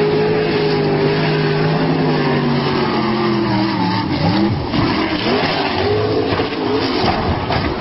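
Speedboat engine running at speed with a steady note that falls slowly. About four seconds in, the note breaks up into wavering rises and falls amid rushing spray noise as the boat swerves and runs onto the rocky bank.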